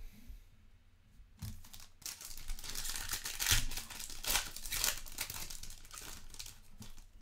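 Foil wrapper of a Select Soccer trading-card pack crinkling and tearing as it is ripped open by hand: a run of irregular crackling rustles starting about a second and a half in.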